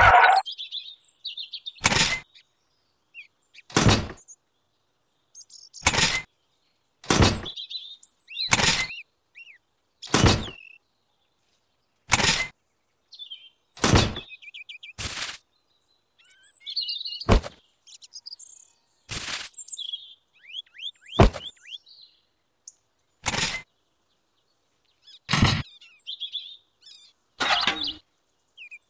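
A series of about fifteen short, sharp knocks, roughly one every one to two seconds: small objects such as miniature pipes and toy cement boxes being set down in a plastic toy trailer. Faint bird chirps come between the knocks.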